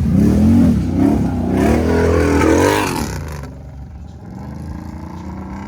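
Can-Am Outlander ATV V-twin engine revving up and down, then easing off to a steadier, quieter low running about three seconds in.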